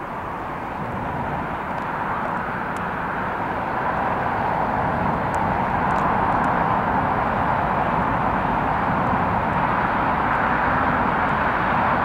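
Steam locomotive working hard as it hauls a train towards the listener, its sound growing steadily louder, with wind buffeting the microphone.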